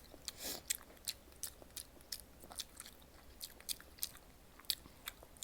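Close-miked chewing: a person eating with wet mouth clicks and smacks, irregular, a few a second.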